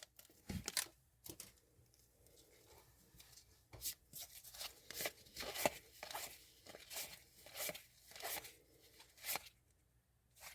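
Hockey trading cards and their pack wrapper being handled by hand: a series of short papery rustles and scrapes, coming roughly every half second after a quieter start.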